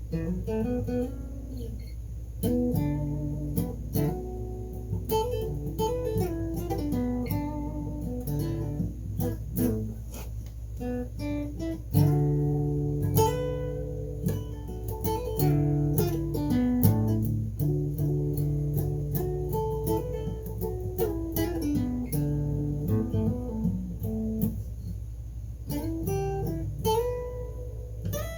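Guitar playing an instrumental passage of picked notes and melodic runs, over a steady low hum.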